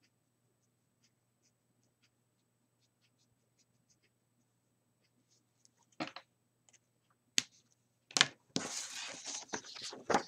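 Faint strokes of a Copic marker's nib on paper. About six seconds in come a few sharp clicks and a knock. Near the end a sheet of paper rustles and slides on a cutting mat as it is picked up.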